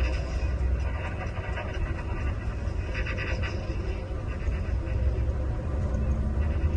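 Scania engine of a Marcopolo Paradiso 1800 DD double-decker coach running under way: a steady low rumble, with brief hissy bursts near the start and about three seconds in.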